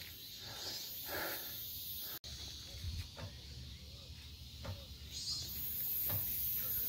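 Outdoor ambience: a steady high hiss over a low rumble, with a few faint short sounds. The sound breaks off for an instant about two seconds in, and the high hiss grows louder near the end.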